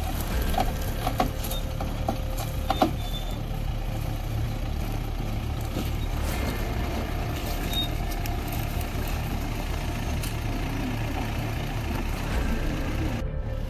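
Mahindra Bolero engine running steadily while driving a rough off-road track, with a few sharp knocks and rattles in the first three seconds.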